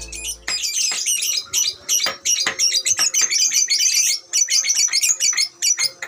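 Lovebird giving a long, rapid run of high-pitched chattering chirps with only brief breaks: the continuous 'ngekek' song that lovebird keepers prize as a sign of a bird in full song.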